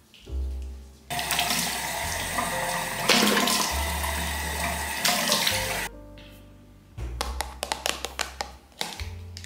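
Bathroom sink tap running for about five seconds, then stopping, followed by a run of short light clicks and taps.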